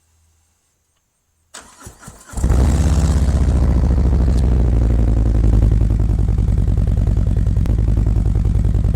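Harley-Davidson V-twin started through Khrome Werks HP-Plus slip-on mufflers with the baffles removed: the starter cranks briefly, the engine catches about two seconds in, and it then idles loud and steady.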